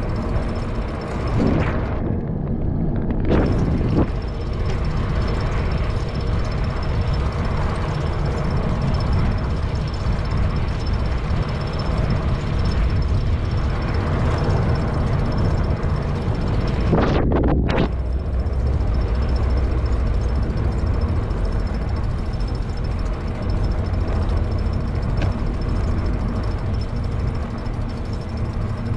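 Wind rumbling and buffeting over the microphone of a moving bicycle: a loud, steady low rush with no let-up.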